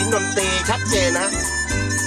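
Music played through a car's Audison Limited Edition 2-ohm speaker set: a steady bass line and beat, with a melody sliding between notes through the first half.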